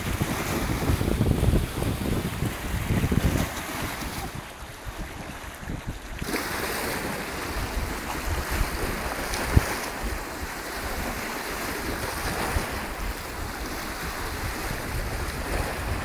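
Small lake waves splashing and lapping against the rocks of a stone embankment, with wind buffeting the microphone in low rumbling gusts, heaviest in the first few seconds. One brief sharp knock comes about ten seconds in.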